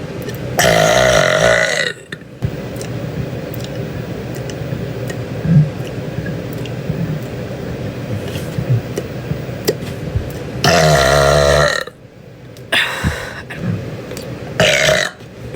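A woman belching loudly and deep: two long burps of about a second each, one near the start and one about eleven seconds in, then two shorter burps near the end.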